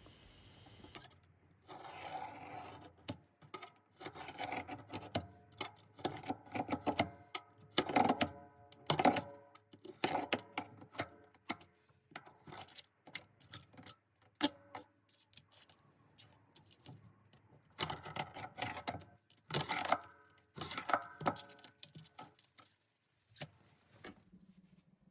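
Knife cutting away the overhanging wood veneer at the edge of a veneered panel: a long run of irregular sharp clicks and crackles with short pauses between them.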